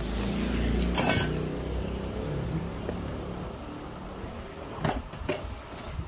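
Cardboard box being tipped and handled, with the solar street light's parts shifting and clinking against each other inside it. There is a sharp clatter about a second in and a softer knock near the end, over a low droning tone that fades after a few seconds.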